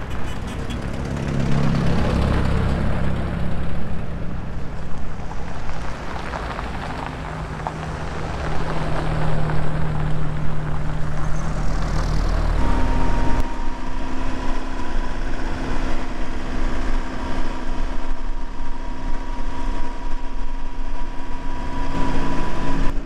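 Willys flat-fender jeeps driving past on a gravel road, their engine sound swelling and fading as each goes by. About 13 seconds in it changes to the sound from aboard a moving open jeep: a steady engine drone with a steady whine over it.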